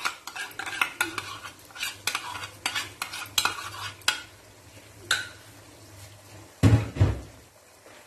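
Spatula scraping and tapping against a wok as ketchup is spread over the frying chicken pieces, with a light sizzle underneath. Two dull thumps come near the end.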